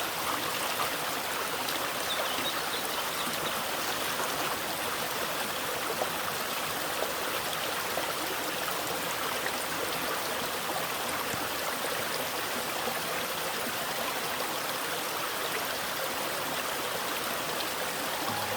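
Mountain valley stream running, a steady unbroken rush of water.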